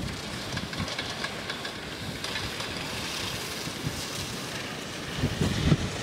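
Wind noise on the microphone with a steady hiss, gusting into low rumbles near the end.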